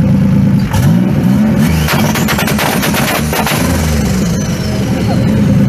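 Turbocharged 3400 V6 running and revved in short blips. From about two seconds in, for about a second and a half, it gives a rapid string of pops and bangs: the two-step launch limiter's spark cut holding the revs.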